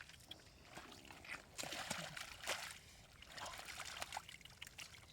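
Water splashing and trickling in irregular bursts, as if stirred by hands or a struggling fish, with small clicks in between.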